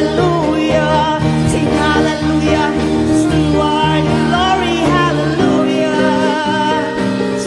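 Live gospel worship music: a group of singers with electronic keyboard accompaniment, the chords shifting a little past halfway.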